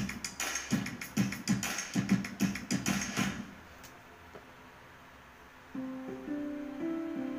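Background music: a rhythmic beat that stops about three and a half seconds in, then after a short pause a plucked guitar tune begins.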